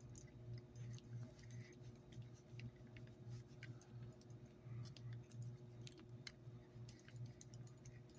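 Faint, scattered light clicks and rustles of paracord being pulled tight in a cobra weave around a metal crab claw clasp, over a steady low hum.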